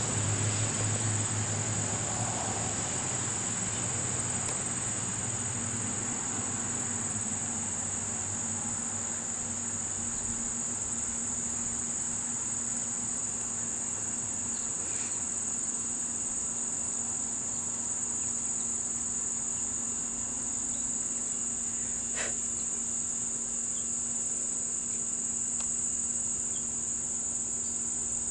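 Insect chorus: a continuous high-pitched shrill drone that holds steady without a break.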